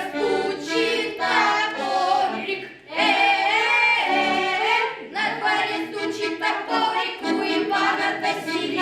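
A children's folk ensemble singing a Russian folk song together in phrases, with steady lower notes sustained underneath the voices.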